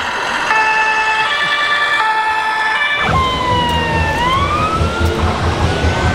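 Scale RC fire trucks' sound modules: a two-tone siren alternating between two pitches, then, about three seconds in, a wailing siren that falls and then rises over a low diesel engine rumble.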